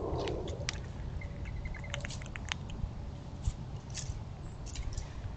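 Squirrel gnawing a nut, a scattered run of small sharp cracks and clicks of teeth on shell, over a steady low rumble.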